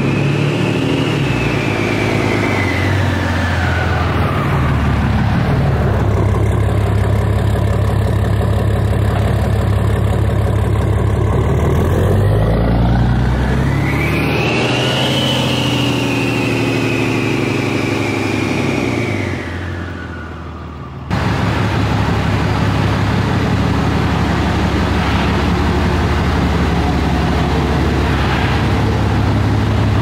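Cummins diesel pickup truck engine running while the truck is driven. A high whine over the engine drops in pitch over the first few seconds, climbs again about halfway through, then falls away. About two-thirds through, the sound cuts suddenly to a steadier engine run.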